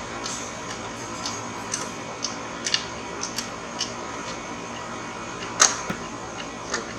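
Light metallic clicks and taps at irregular intervals, with a sharper click about five and a half seconds in, from a spanner turning the adjust nut of a motorcycle clutch cable to take up the lever's free play.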